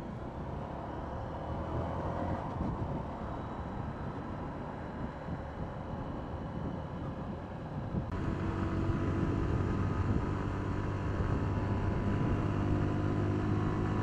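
Motorcycle ridden at a steady cruise, heard from a helmet-mounted camera: engine drone mixed with rushing wind noise. About halfway through the sound changes abruptly to a clearer, steady engine note held at one pitch.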